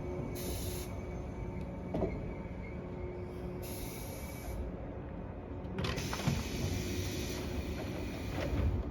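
113 series electric train standing at a station platform: a steady hum from its equipment, broken by short bursts of compressed-air hiss and a few clunks.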